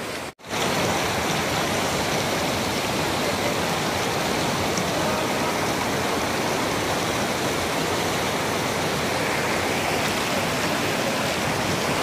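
Steady rush of a stream tumbling over rocks in rapids below a waterfall. It drops out briefly about half a second in.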